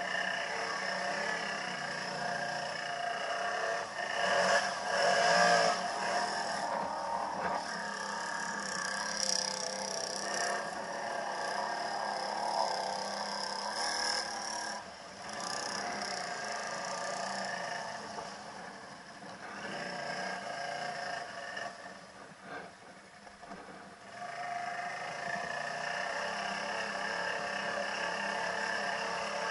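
ATV engine running under throttle as the quad ploughs through a flooded ditch, its pitch rising and falling, with water splashing and sloshing against the machine. The engine eases off and goes quieter for a couple of seconds past the middle, then picks up again.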